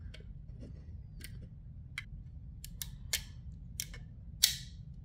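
A scatter of light metal-on-polymer clicks from a steel punch being worked against the takedown-lever spring and lever in a Glock 43X pistol frame, with a sharper click about four and a half seconds in.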